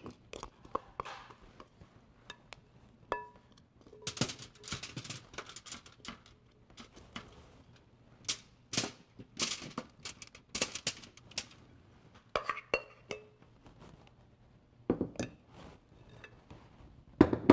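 Asparagus spears being laid one by one onto a foil-lined baking sheet: irregular light taps and crinkles of the aluminium foil, busiest in the middle, with a few brief ringing clinks of kitchenware.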